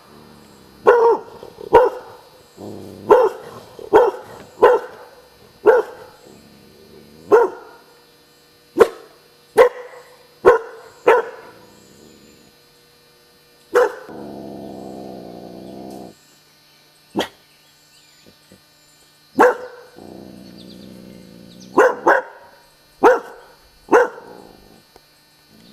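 A fearful, reactive dog barking: about eighteen sharp single barks at irregular intervals. There are two longer, lower stretches of sound between them, about halfway through and again later.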